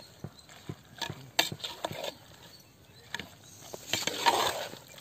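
Metal ladle knocking and scraping against a clay pot while quail pieces are stirred and fried in oil: a string of irregular sharp knocks, with a longer, louder scrape about four seconds in.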